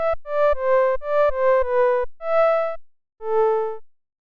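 FM synthesizer patch in Sytrus playing a short phrase of about eight notes that step up and down in pitch. The first six notes are quick, then come two longer held notes, the last and lowest after a brief gap.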